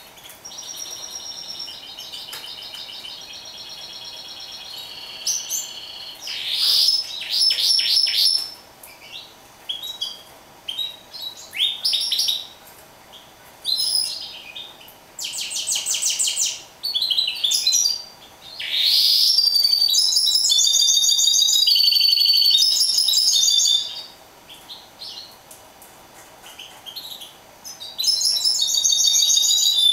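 A caged mule, a canary crossed with a finch, singing: a string of high trilled and warbled phrases broken by short pauses. The longest, loudest trill comes about two-thirds of the way in, and another loud phrase near the end.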